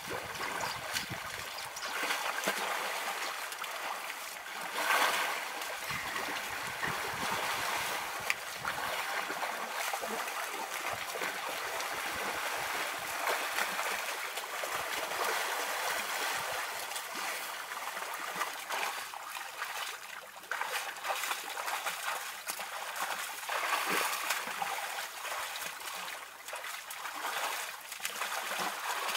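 Mud and water splashing and trickling as young African elephant calves roll and wallow in a muddy waterhole, with many short wet slaps and a couple of louder splashes.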